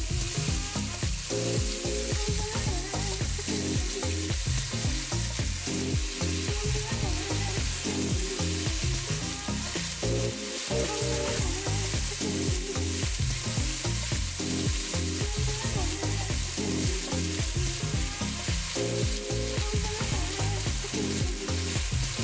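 Marinated oxtails sizzling steadily in hot oil as they sear in a pot, browning a crust and building fond on the bottom, with low background music beneath.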